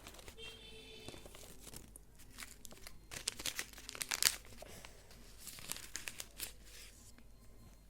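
Paper rustling and crinkling as handmade paper pieces are handled and pulled from a paper envelope, in irregular crackles that are loudest about four seconds in.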